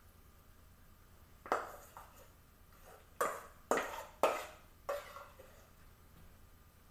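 A metal spoon knocking against a stainless steel mixing bowl as filling is scooped out: about five sharp clinks, each ringing briefly, three of them in quick succession near the middle.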